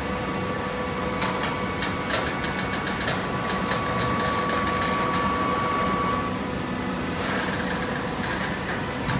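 Hydraulic waste paper baler machine running with a steady mechanical hum and whine. A series of sharp clicks and knocks comes between about one and three seconds in, and a brief rush of noise about seven seconds in.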